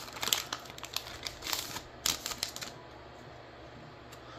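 Foil wrapper of a Pokémon trading-card booster pack crackling and crinkling as it is torn open: a quick run of sharp crinkly clicks that stops about two and a half seconds in.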